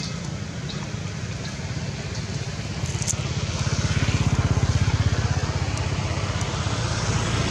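A motor vehicle engine running, a steady low pulsing rumble that grows louder for a couple of seconds in the middle.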